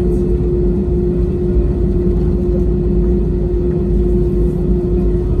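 Cabin noise of an Airbus A320-family jet taxiing, heard from inside the cabin: the engines run near idle as a steady low rumble with one constant hum on top.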